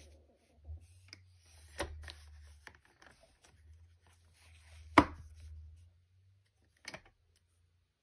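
Sheet of patterned paper being slid and pressed flat on a paper trimmer: a soft rubbing with three sharp knocks, the loudest about five seconds in.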